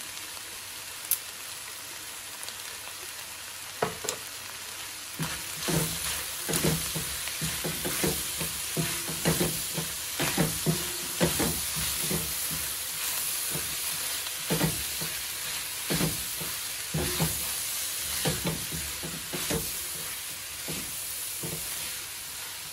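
Beef strips with carrots and peas sizzling in a large aluminum pot, with a steady frying hiss. From about four seconds in, a silicone spatula stirs and scrapes against the pot in repeated strokes, about one or two a second.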